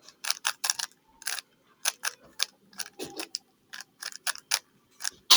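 3x3 Rubik's cube layers being turned, a string of irregular sharp plastic clicks and clacks, about three or four a second.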